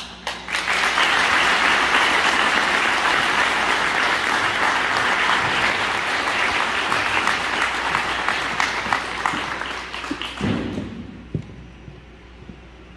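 Audience applause for a speaker: a dense, steady round of clapping that starts about half a second in, holds, and dies away at around eleven seconds.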